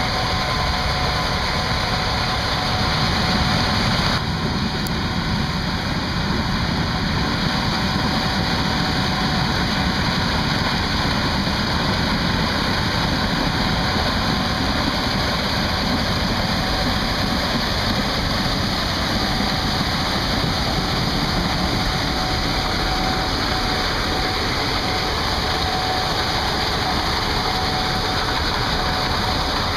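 Gleaner S78 combine running steadily while harvesting corn with its 8-row corn head: a constant mechanical drone with a faint steady whine.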